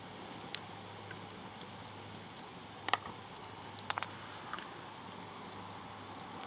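Dried corn kernels parching in a frying pan over a campfire, with a few sharp pops scattered through as their shells crack, over a steady low hiss.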